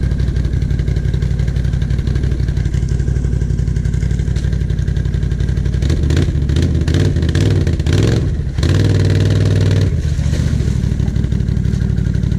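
ATV engines running at a steady idle. From about six seconds in, a Can-Am quad stuck in deep mud is revved in short bursts, with one longer, higher rev near nine seconds, as it is worked to get free.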